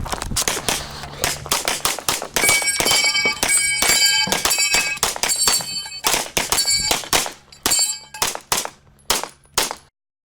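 Rapid strings of pistol shots, with steel targets clanging and ringing as they are hit, mostly in the first half; the sound cuts off abruptly just before the end.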